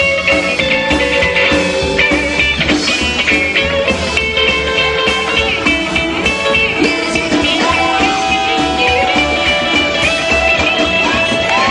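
Rockabilly band playing live through an instrumental break, an electric guitar carrying the lead with sliding notes over steady bass and drums.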